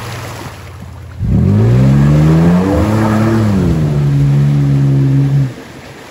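Off-road car engine revving hard. Its pitch climbs steeply about a second in, holds high for about four seconds, then drops back suddenly.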